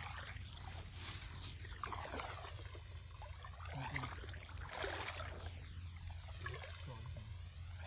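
Footsteps wading through shallow water in a flooded rice paddy: water sloshing and rice stalks swishing against legs in repeated swishes, over a steady low rumble.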